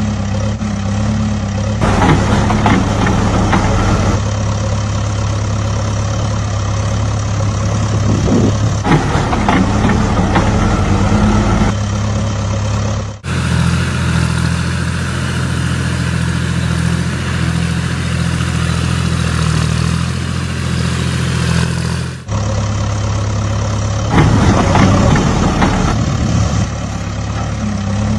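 Vehicle engine sound, a steady idling hum. It switches abruptly to a different engine tone about 13 seconds in and switches back about 22 seconds in, with several louder, rougher stretches.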